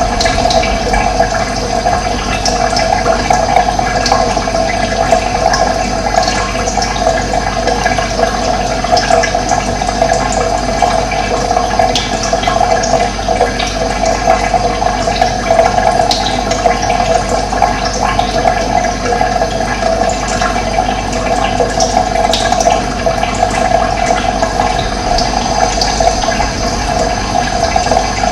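Running water: a steady, unbroken rushing flow, with occasional short bird chirps above it.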